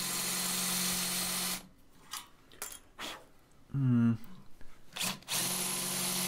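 Electric drill boring into a cast iron window frame: the motor runs steadily, stops after about a second and a half, and starts again about five seconds in, with a few clicks and a short sound falling in pitch in the pause. The bit is struggling to cut the hard cast iron where an old hinge was welded on.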